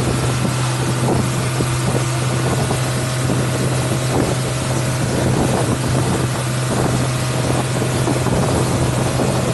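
Motorboat engine running steadily with a constant low hum, over the rush of water along the hull and wind on the microphone.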